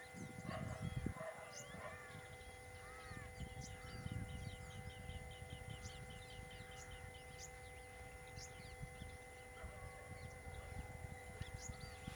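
Wild birds calling: a few arched whistled notes in the first seconds, then a rapid run of short chirps, about four a second, lasting several seconds. A low rumbling noise lies underneath.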